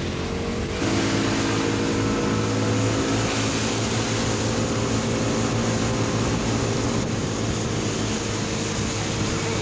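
Scooter engine running at a steady speed, heard from on board, over a steady hiss of wind and rain; it gets a little louder about a second in.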